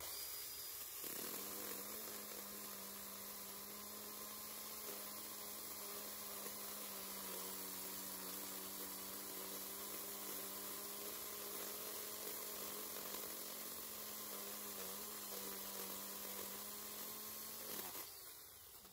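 A cordless mini chainsaw (JPOWTECH, 21-volt battery) running and cutting through a thick branch. A steady electric motor hum sits over the noise of the chain in the wood. It starts abruptly, settles into an even tone after about a second, and cuts off near the end.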